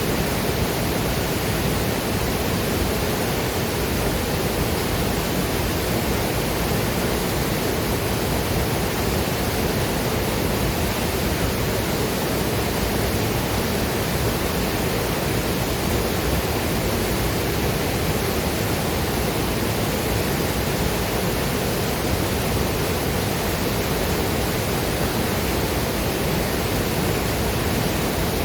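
Waterfall and river water rushing in a steady, unbroken roar of noise.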